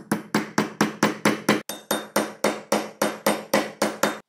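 Rapid, even hammer taps on a steel pin punch, driving a pin in the steel slide of a Colt Model 1903 Pocket Hammer pistol held in a bench block: about four or five strikes a second, each with a short metallic ring, and one brief break about a second and a half in.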